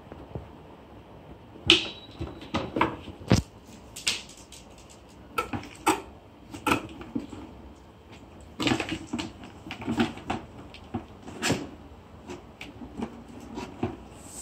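A cat pawing and batting at a cardboard box, making irregular knocks, taps and short scrapes on the cardboard, starting about two seconds in.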